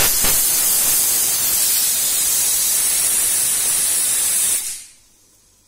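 Stovetop pressure cooker whistle: the weighted steam valve lets off a loud, steady hiss of steam for about five seconds, then cuts off. This is the cooker's second whistle, the count that tells the cook the food is done.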